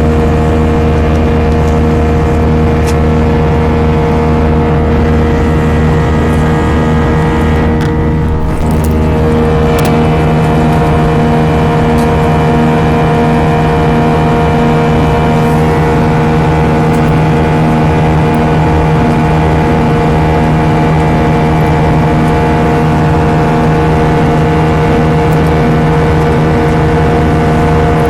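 Airbus A320 jet engines running steadily, heard inside the passenger cabin as a loud, constant drone with several steady hums. The sound dips and shifts slightly about eight seconds in.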